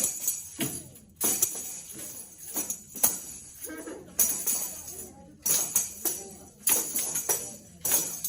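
A tambourine struck in a rhythm, its jingles rattling with each hit, about one to two hits a second in an uneven pattern.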